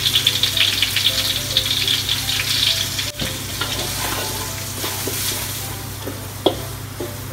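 Curry frying in hot oil with onions and lemongrass in a wok, sizzling and crackling while a metal spatula stirs and scrapes it. The sizzle is loudest at first and gradually dies down, with a sharp clink of the spatula on the wok near the end.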